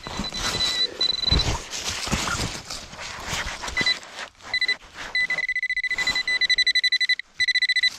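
Handheld metal-detecting pinpointer beeping in a dug hole. A few short beeps early on turn into a near-continuous high tone about five seconds in, then a rapid stutter of pulses, the sign that the probe is right on a metal target. Leaves and soil rustle and scrape under gloved hands in the first half.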